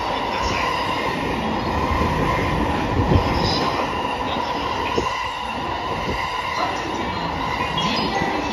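JR E231 series electric train passing through the station without stopping: a steady rumble of wheels on rail with a constant high tone above it, and two sharp knocks about three and five seconds in.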